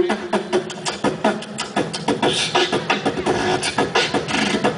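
Beatboxing amplified through a microphone and stage PA: a quick rhythm of mouth-made drum sounds.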